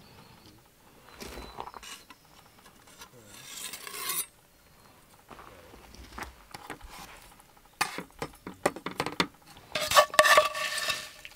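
A knife slicing steak on a cutting board, with soft scraping. Near the end come clicks and a loud clatter as a wooden spoon scrapes potatoes around a cast iron skillet, the pan ringing briefly.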